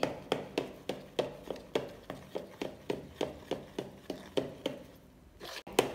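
Steel spoon beating gram-flour batter in a plastic bowl: quick wet slapping taps about three a second, stopping near the end. The batter is being beaten hard to make it smooth, which gives soft chillas.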